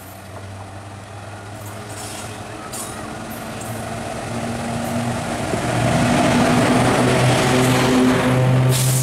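WAG-5 electric locomotive approaching and passing at speed while accelerating, its steady hum growing steadily louder. Near the end the rush of the coaches rolling by takes over.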